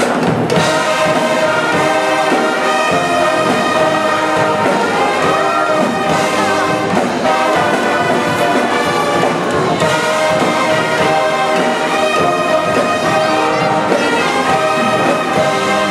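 College pep band playing a loud brass tune: trumpets, trombones, saxophones and sousaphones together in a steady, unbroken stretch.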